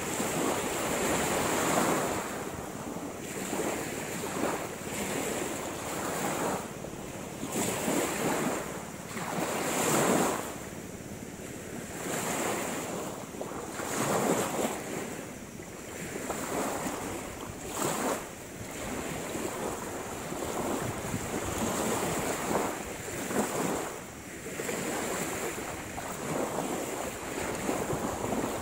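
Small sea waves washing up on the shore in swells every couple of seconds, with wind buffeting the microphone.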